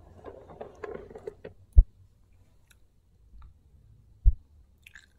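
Handling noise: light rustling and clicking, then two dull low thumps about two and a half seconds apart.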